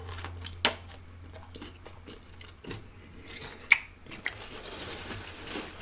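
Close-miked chewing with wet mouth clicks and smacks and a few sharper crunchy bites, unevenly spaced.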